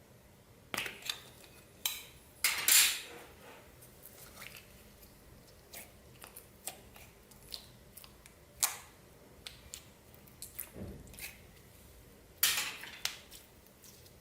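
Slime being worked by hand, giving irregular sharp crackles, clicks and pops. There are short clusters of them, the loudest about two and a half seconds in, again near nine seconds and near the end.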